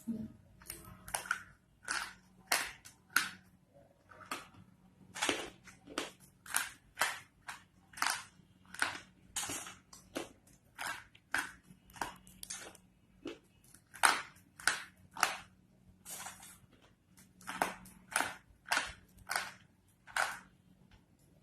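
Slate pencils being bitten and chewed with a crisp, dry crunch, about two crunches a second, some much louder than others.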